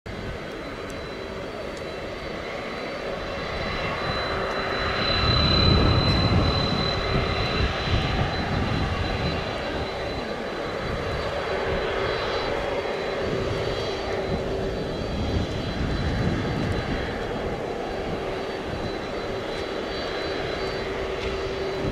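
Twin jet engines of a UPS Boeing 767 freighter running at taxi power: a steady whine over a low rumble that swells about five to seven seconds in, then settles.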